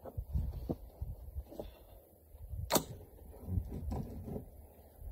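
A single sharp report from a suppressed AR-15 carbine, about halfway through, over low wind rumble and a few small knocks.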